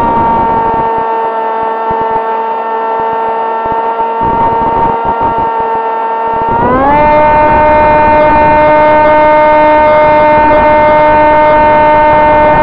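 Sonicmodell AR Wing FPV racing wing's electric motor and propeller whining in flight, picked up by the onboard camera with wind rush beneath. The pitch holds steady, then rises and gets louder about halfway through as the throttle is opened, and stays there.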